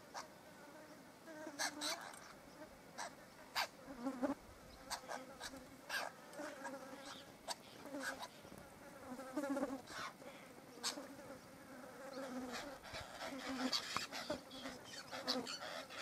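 Flies buzzing past the microphone on and off, with short sharp splashes now and then as apostlebirds bathe and drink in a shallow plate of water.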